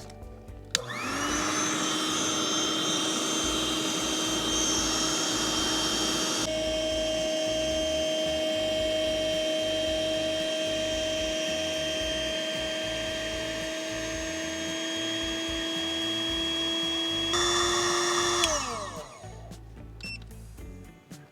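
Small electric blower-type motor, such as an air pump, running: it spins up with a rising whine about a second in, runs steadily with a couple of small shifts in pitch, then winds down near the end.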